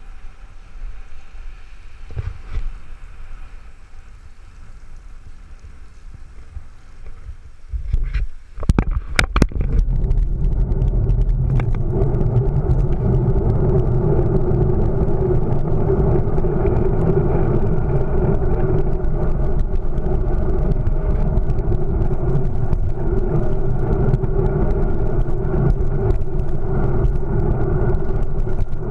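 Wind and road noise picked up by an action camera riding along with bicycles on a wet street. The noise is moderate at first, there are a few sharp knocks about eight to nine seconds in, and from about ten seconds in it becomes a loud, steady rush.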